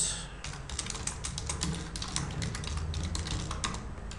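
Computer keyboard being typed on: quick, uneven runs of key clicks, pausing briefly near the end.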